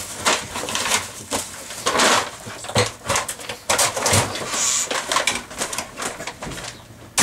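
Plastic bread bags crinkling and rustling in irregular bursts as they are snatched up and carried, with a few dull knocks and bumps.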